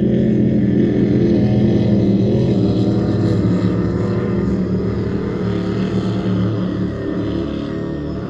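Racing powerboat's engines running at high speed as the boat passes, a loud steady drone that fades slightly near the end as the boat draws away.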